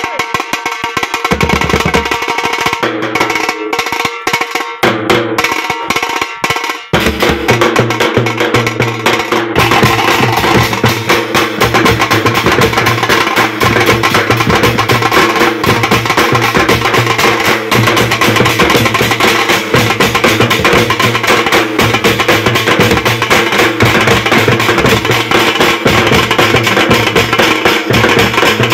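Nasik dhol group drumming: large barrel dhols and smaller drums beaten with sticks. Sparser strokes at first, then about seven seconds in the whole group comes in with loud, fast, continuous drumming.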